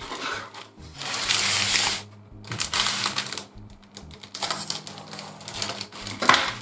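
Clear plastic bag crinkling in three bursts as it is handled and opened around grey plastic model-kit sprues.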